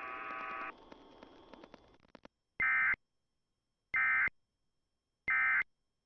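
Emergency Alert System end-of-message data tones: three short, identical bursts of shrill warbling digital tones about a second and a half apart, marking the end of the alert. Before them, a steady buzz cuts off under a second in and leaves a fading hiss.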